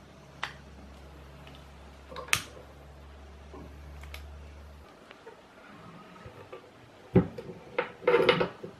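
A few light clicks, then near the end the cast-iron doors of a multi-fuel stove are swung shut with several loud metal clanks and a short rattle.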